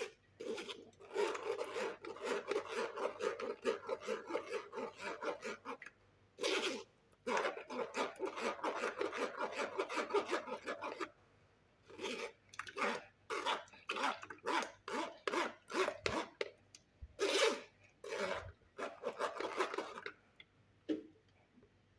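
Quick rhythmic rasping strokes of a kitchen utensil working food, several a second, in two long runs and then in slower, separate strokes that stop near the end.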